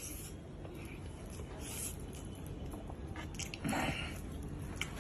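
Close-up eating sounds: a man chewing a mouthful of rice, with small wet clicks and scrapes. There is a louder moment just under four seconds in, as his fingers dig into a pile of cooked chicken pieces.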